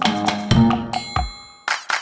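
Upbeat background music with a steady percussive beat and bass notes. About halfway the beat breaks off for a short ringing tone, and a brief hit comes near the end.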